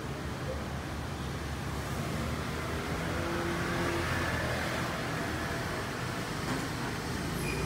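Road traffic noise: a motor vehicle engine running with a steady low rumble, growing a little louder partway through.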